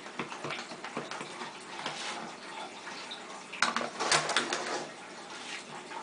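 Clear acrylic stamp block dabbed and rubbed repeatedly on an ink pad, a soft irregular tapping and scuffing. About four seconds in there is a short run of louder clacks and rustling as the ink pad is moved aside and the block set down on the card.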